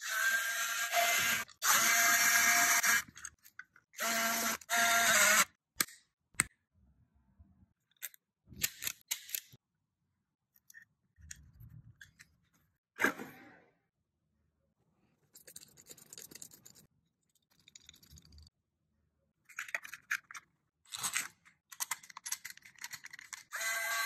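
Wiha speedE electric screwdriver running in short bursts, its small motor whining as it backs out switch-plate screws, three runs in the first five seconds. Faint handling and clicks of wiring follow, then several more short screwdriver runs near the end as the screws go back in.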